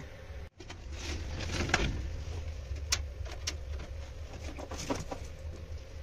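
Clicks and knocks of cable connectors being handled and plugged into the back of a desktop computer case, over a low steady hum, with a bird cooing in the background.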